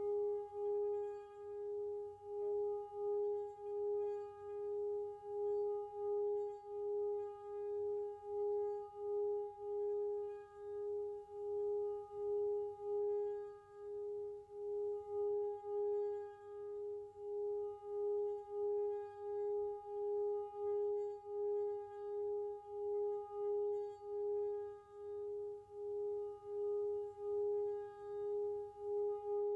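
Tibetan singing bowl ringing on one sustained low tone that throbs about three times every two seconds, with a steady higher tone above it.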